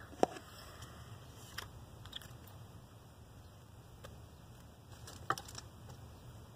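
Handling noise close to the microphone: a few sharp clicks and light taps over a low steady hum. The two loudest clicks come just after the start and about five seconds in.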